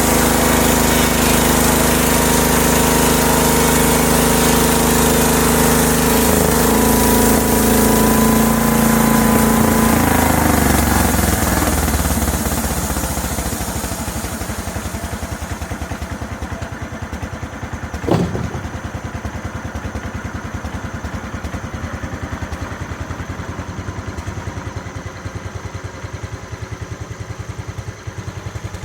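Homemade sawmill running at full speed with a high, steady hiss over the engine; about ten seconds in the engine slows and settles to an even idle. One sharp knock about eighteen seconds in.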